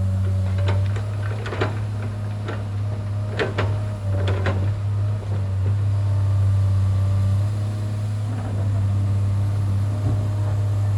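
Heavy construction machinery engine running at a steady low hum, with a string of sharp metallic clanks and knocks in the first half, two close pairs among them.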